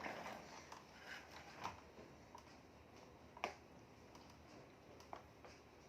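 Near silence in a small room, with a few faint short taps or clicks, the clearest about halfway through.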